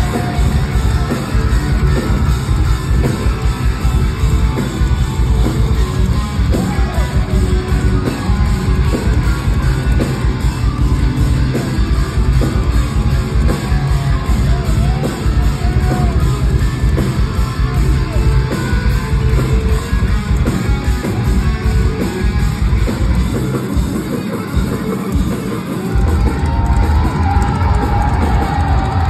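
Loud live heavy metal band playing through a venue PA, recorded from within the crowd: distorted electric guitars over dense, fast kick drums. The low drums thin out briefly about 24 seconds in, then the full band comes back in.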